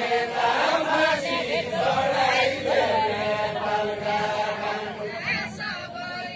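A group of men singing a deuda, the far-western Nepali folk song, together in a chant-like unison with long held notes.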